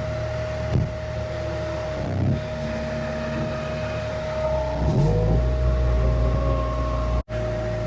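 Skid steer engine running with a steady high whine over it; about five seconds in the engine revs up and holds at the higher speed. The sound cuts out for an instant near the end.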